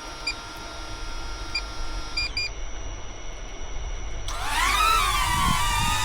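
Small DJI Neo drone beeping a few short times, then its propeller motors spinning up about four seconds in: a whine that rises quickly in pitch and settles into a steady, slightly wavering buzz. A low rumble of wind and boat noise runs underneath.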